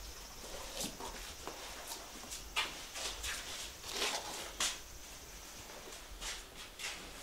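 Irregular footsteps, scuffs and knocks on old wooden floorboards as people step up from the entrance into the house, with a few louder knocks about two and a half and four seconds in.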